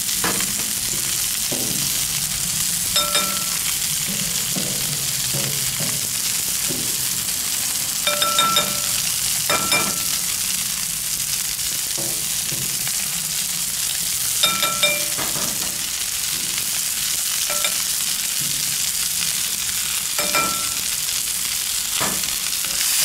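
Chicken breasts and vegetable pieces sizzling steadily on a hot flat-top griddle. Tongs clink and tap now and then, about a dozen short clinks, some ringing briefly like a glass bowl being struck.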